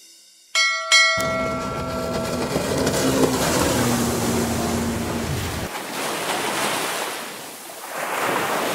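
Intro sound effects of a bell and water: two quick bell chimes about half a second in, then a steady rush of surf with a low boat-motor rumble that cuts out about five and a half seconds in. The water rush carries on and swells again near the end.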